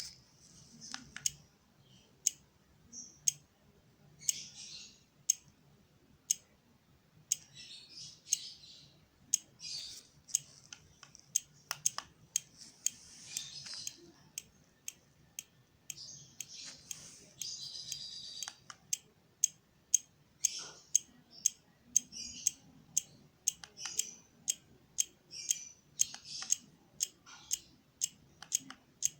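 A run of sharp clicks, irregular at first and then about two a second in the second half, mixed with short scraping or rustling sounds.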